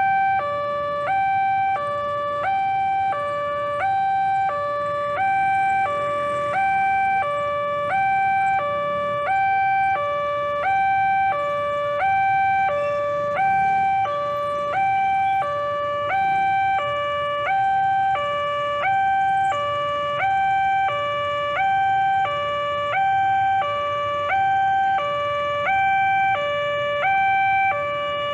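Railway level-crossing warning alarm sounding: an electronic two-tone signal alternating evenly between a high and a low tone, about a second each, warning that a train is approaching.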